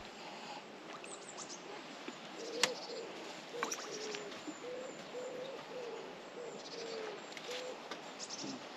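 A pigeon cooing: a run of about ten short, low coos starting about two and a half seconds in. A sharp click comes at the first coo and a lighter one about a second later.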